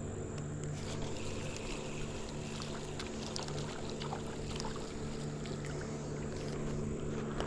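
A motor running steadily with a low, even hum, with scattered light clicks and small water sounds over it.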